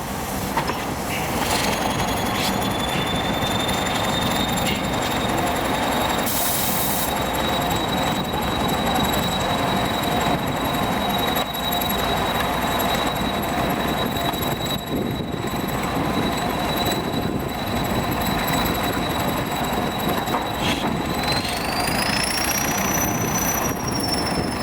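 Old Soviet EO-5111B excavator with its pile-driving rig working: steady machine noise with a high-pitched whine over it that holds level, then rises in pitch about three seconds before the end.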